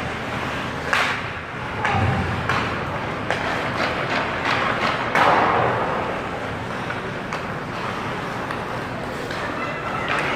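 Ice hockey play in a rink: sharp knocks and thuds of the puck, sticks and players against the boards and ice over a steady hall echo and distant voices, the loudest a longer noisy rush about five seconds in.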